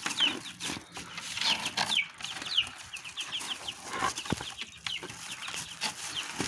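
Baby chicks peeping: repeated short, high cheeps that fall in pitch, coming in quick runs of several a second.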